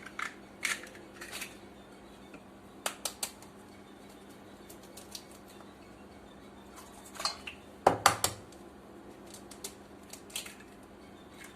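Eggs being cracked into a bowl: scattered sharp taps and clinks of shell on the rim and bowl, the loudest cluster about eight seconds in.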